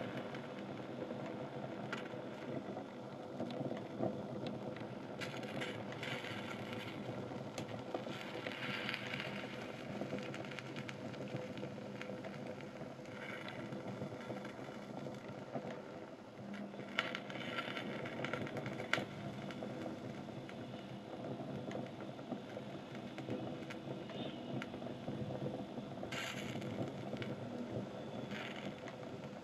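Open flames burning a pile of rubber-soled sneakers and fabric, crackling and popping over a steady low rush.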